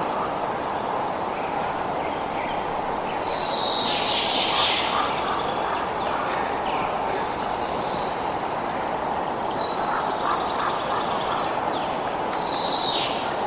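Birds calling over a steady rushing background noise: a long falling call about three seconds in and another near the end, with a few shorter, higher notes between.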